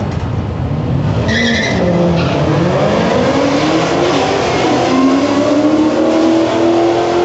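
Hyundai Tiburon launching off a drag-strip start line: a brief high-pitched tyre squeal about a second in, then the engine accelerating hard through the gears, its pitch climbing and dropping back at each shift before a last long climb.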